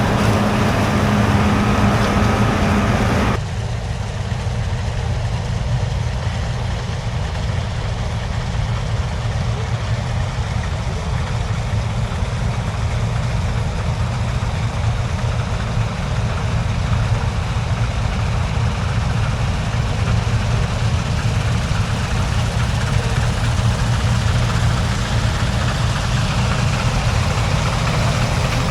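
Heavy diesel engines of harvest machinery running steadily with a deep hum. About three seconds in the sound changes abruptly to a duller, more muffled running.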